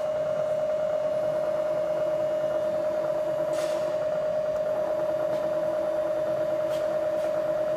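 Bridgeport/Hardinge Series I CNC knee mill running with a steady high whine while its X-axis servo jogs the table along the ball screw, adding a lower hum in two stretches. A few light clicks from the control's buttons.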